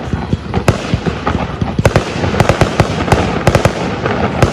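Aerial fireworks display heard from far off: a dense run of shell bursts over constant crackling, with sharp bangs coming thickest in the middle stretch.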